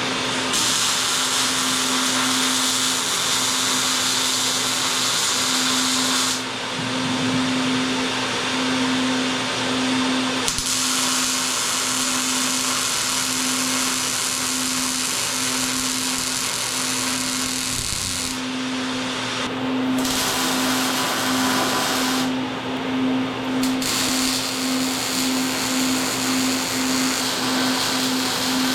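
Angle grinder running and grinding a weld on steel C-channel, a steady motor hum under a loud grinding hiss that eases off a few times as the wheel comes off the metal.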